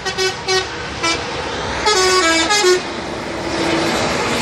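Bus 'telolet' horn, a multi-tone musical air horn: four short toots in the first second, then a quick run of stepped notes about two seconds in, and a fainter held note near the end. Steady highway traffic rushes underneath.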